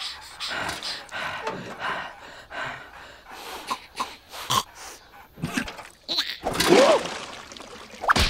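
Cartoon larva characters panting and gasping in short breathy bursts, with small grunts and a louder vocal cry about six and a half seconds in.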